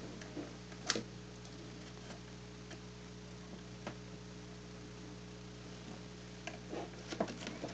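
Scattered light clicks and ticks of a nylon zip tie and wire being worked on a plastic antenna centre plate, a little busier near the end, over a steady low electrical hum.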